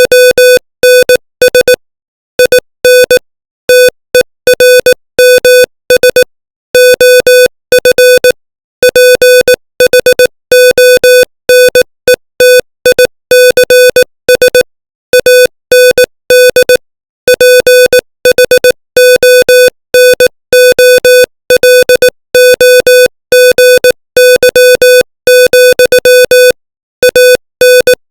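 Morse code sent at 18 words per minute: a single steady-pitched beep keyed on and off in short dots and longer dashes, with brief gaps between letters and longer pauses between words.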